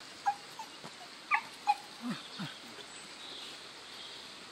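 Mini English bull terrier whimpering: four short, high yips in the first two seconds, then two lower, falling whines. It is eager for its bottle floating in the river but won't go into the water.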